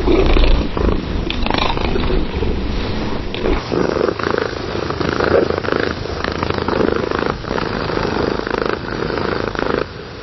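Domestic cat purring close to the microphone, a steady continuous purr. About three and a half seconds in, one purring recording gives way to another with less deep bass, and the level drops near the end.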